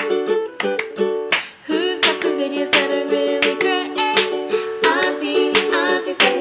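Outro music: a bright plucked-string tune, ukulele-like, with quick repeated notes.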